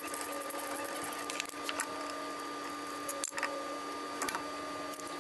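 Scattered light metal clicks and clinks of hand tools working on a golf cart's rear differential housing, over a steady hum.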